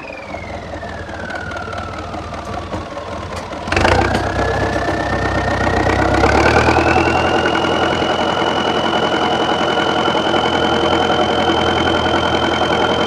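Tractor engine running with a drivetrain whine that falls in pitch over the first few seconds, a single loud metallic clunk about four seconds in, then the whine climbs and holds steady as the engine runs up.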